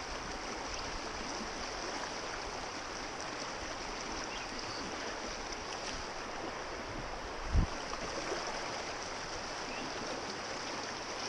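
River water rushing steadily, with one brief low thump about seven and a half seconds in.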